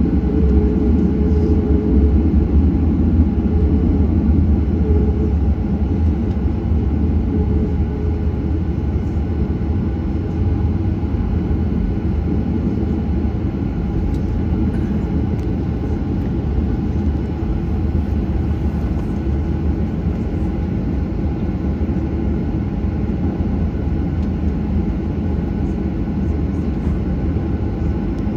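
Boeing 737 airliner heard from inside the passenger cabin: its jet engines and airframe make a steady low rumble, a little louder in the first few seconds.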